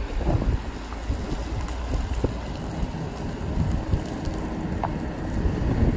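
2008 Chevrolet Silverado 2500 HD pickup driving slowly past, its engine running with a steady low rumble, with wind buffeting the microphone.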